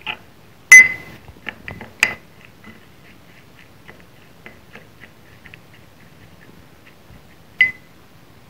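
Metal spoon stirring a wet spice paste in a small glass bowl, clinking against the glass: sharp ringing clinks about a second in, about two seconds in and near the end, with lighter taps and scrapes in between.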